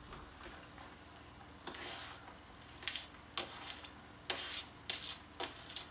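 Chopped carrots being pushed off a plate into a hot pan of browning ground meat, giving a string of short sizzling, scraping bursts, the loudest a little over four seconds in.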